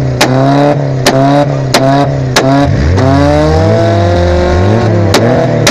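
A Volkswagen Mk2's engine is revved hard over and over, its pitch sweeping up and falling back, with one long climbing rev in the middle. Sharp exhaust bangs crack from the tailpipe about five times, four in the first half and one near the end.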